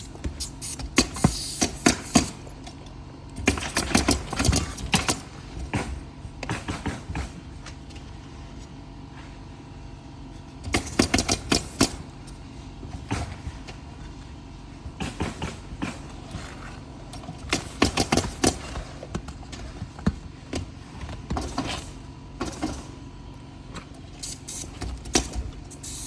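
Steel flat bar prying roofing nails out from under asphalt shingles: several bursts of sharp metal clicks and scraping, with pauses between them.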